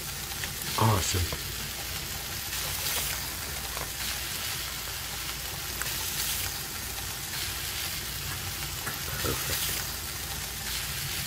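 A steady hiss over a low hum.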